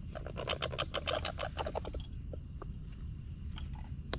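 Red squirrels at a wooden feeder: a quick run of sharp clicks, about ten a second for roughly a second and a half, then a few single clicks, over a steady low rumble.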